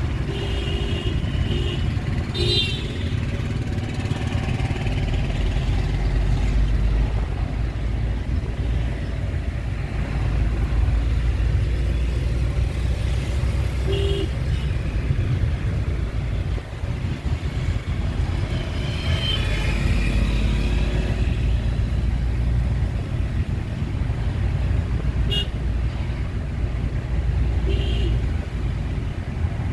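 Engine and road noise inside a moving Suzuki car's cabin in city traffic: a steady low rumble. Short horn toots from other traffic sound now and then, a few times.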